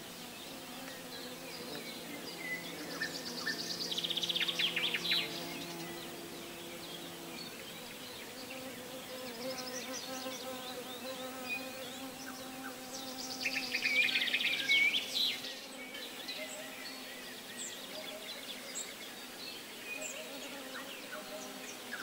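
A flying insect, bee or fly, buzzing with a faint steady hum that drifts slightly in pitch. Birds sing over it: two loud rapid trills, about four seconds in and again around fourteen seconds, with scattered short chirps between.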